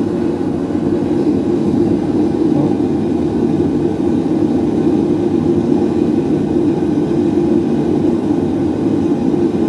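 Forge burner running with a steady, even noise.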